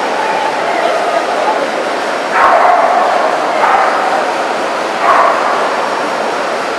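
Dogs barking, three barks about two and a half, three and a half and five seconds in, the first the longest, over a steady din of crowd chatter in a large exhibition hall.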